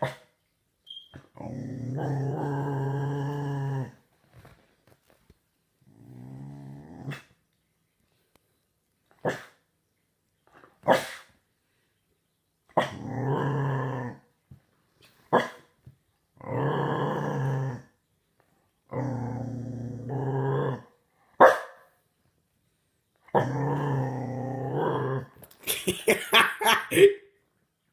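Six-month-old Staffordshire bull terrier puppy growling, about six long low growls of a second or two each. A few single sharp barks fall between them, and a quick run of barks comes near the end.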